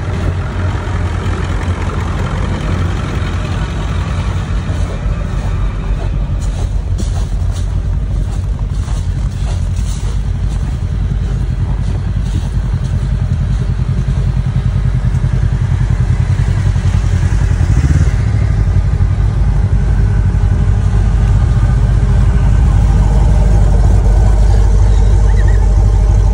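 Idling engines of trucks and a side-by-side heard up close, a steady low rumble that grows louder in the last few seconds.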